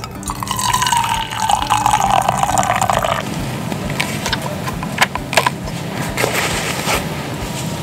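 Coffee poured from a glass carafe into a mug: a splashing trickle whose pitch falls steadily for about three seconds, then stops. A couple of sharp clicks follow about two seconds later.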